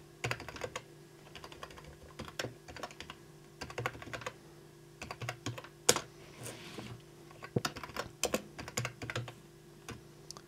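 Typing on a computer keyboard: bursts of quick keystrokes, with one harder key press, the Enter key, about six seconds in. A faint steady hum runs underneath.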